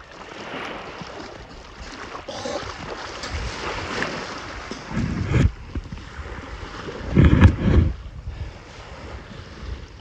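Wind blowing across the microphone over a steady hiss of surf, with two heavy gusts buffeting the microphone, one about five seconds in and a louder one around seven seconds.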